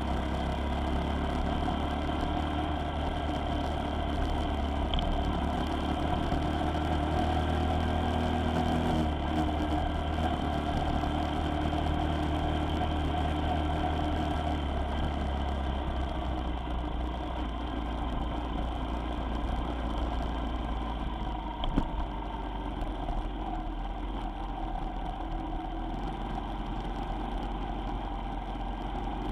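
Vehicle engine running steadily with road noise, heard on board during a drive, with one short knock a little past two-thirds in.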